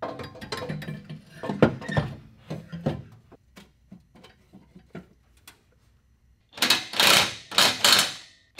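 Hand tools working on bolts under a car: metal clinks, knocks and ratchet clicking, busy in the first few seconds and then sparse. Near the end come four short, loud, rattling bursts.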